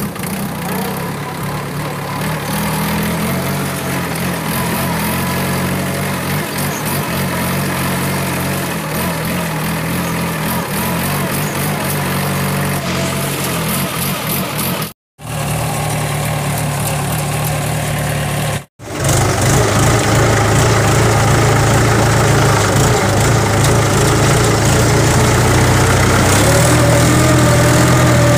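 Small Mahindra tractor's diesel engine running steadily at low speed as it drives through mud. The sound breaks off twice briefly, about 15 and 19 seconds in, and is louder after the second break.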